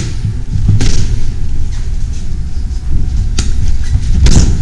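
Boxing gloves striking focus mitts: a few sharp smacks, about a second or two apart, over a heavy low rumble of movement on the microphone.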